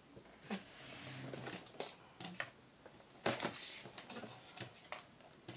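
Handling noise from unpacking a folded quadcopter: a moulded plastic tray crinkling, with about half a dozen sharp clicks and knocks as the drone is lifted out and set down on a table, the loudest about three seconds in.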